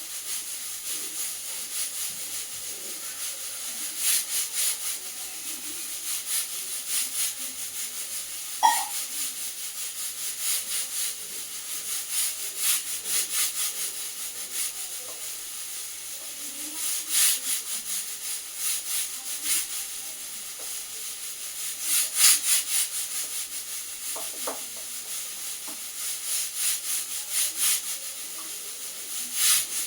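Spoon stirring and scraping a thick rice-flour and cornflour batter in a bowl, in spells of quick scratchy strokes. A short sharp clink about nine seconds in.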